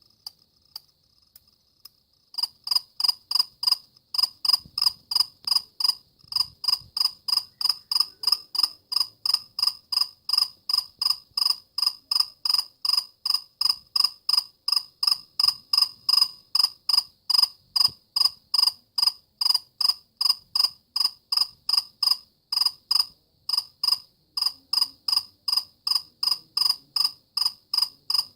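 Cricket chirping in a steady, even rhythm, about two to three high-pitched chirps a second, starting loud about two seconds in after a faint, thin high tone.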